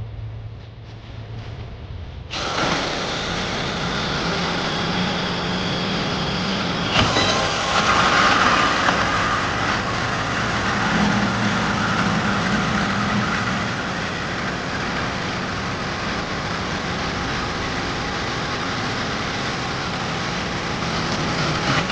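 Cordless Milwaukee M18 FUEL deep cut band saw running and cutting metal. The motor and blade start abruptly about two seconds in, and the cut grows louder and rougher a few seconds later, then holds steady.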